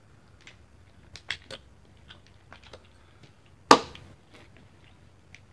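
Light plastic clicks from a speed cube being handled and pried at, then one sharp, loud snap a little past the middle as its centre cap pops off.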